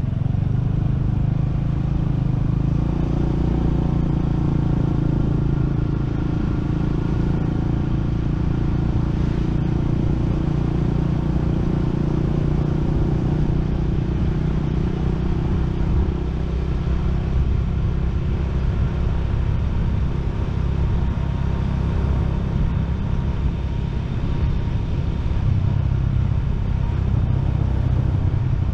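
Motorcycle engine running steadily while riding at low cruising speed, with road and wind noise over it.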